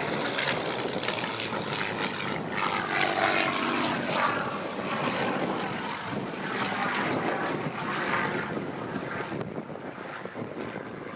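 Supermarine Spitfire's V12 piston engine and propeller droning as the aircraft flies a pass, the sound dipping slightly near the end.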